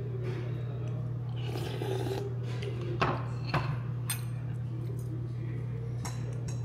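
A steady low hum with rubbing noises and a few sharp clicks about three, three and a half and four seconds in: utensils against a bowl at a meal.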